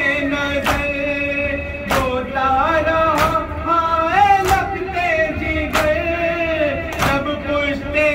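Male voices chanting a noha, a lament in long held lines, over a steady beat of hands slapping chests (matam). There are six strokes, about one every second and a quarter.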